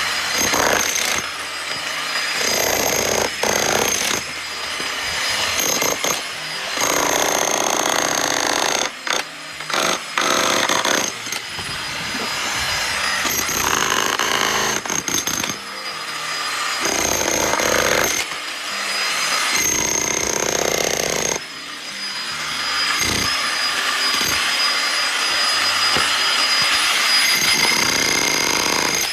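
Power tools cutting wood, a dense motor-and-cutting noise that changes abruptly every few seconds.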